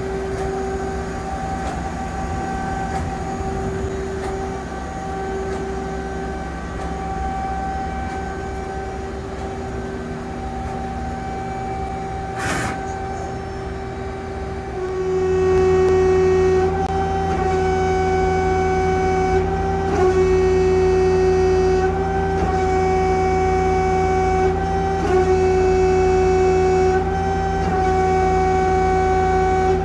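Mazak Quick Turn Nexus 250-II CNC lathe running with a steady humming drone. About halfway through it grows louder and fuller in the low end, as more of the machine's drives come on.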